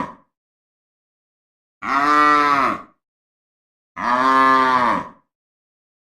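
Cow mooing: two identical moos, each about a second long and rising then falling in pitch, with the tail of another at the very start.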